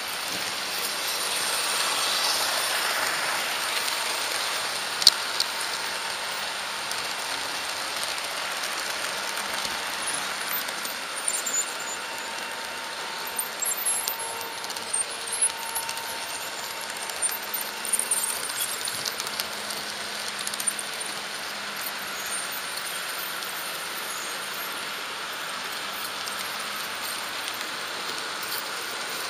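HO-scale model train running along Märklin track, a steady rolling hiss and whir. There is a sharp click about five seconds in, and a run of clicks and clatters around the middle as the wheels cross points.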